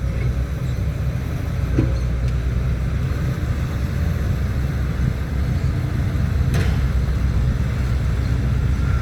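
Heavy diesel engines of a dump truck and excavator running at a steady low rumble, with a faint knock about two seconds in and a sharper one near the middle.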